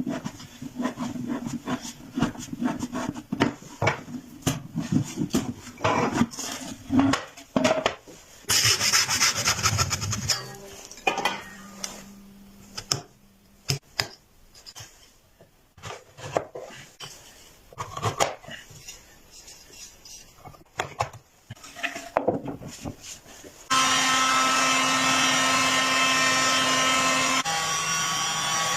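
Wood being worked with tools: scattered knocks, taps and scraping. There is a louder stretch of sawing or rasping noise about nine seconds in. Near the end a steady machine-like sound starts suddenly and holds.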